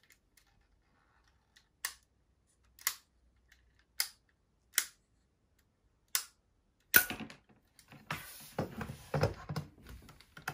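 Plastic clicks from a Lego rubber-band gun's trigger and gear mechanism: five single sharp clicks about a second apart, then a louder click about seven seconds in and a stretch of plastic clattering and handling noise near the end.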